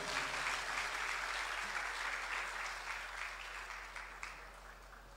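Audience applauding, the clapping dying away over about four seconds.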